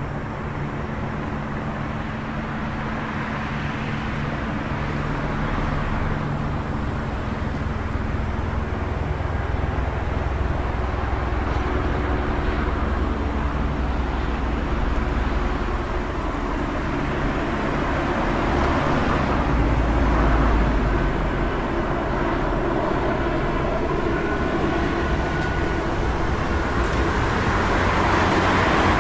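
City street traffic ambience: a continuous low rumble of vehicles, swelling several times as cars pass and growing louder near the end.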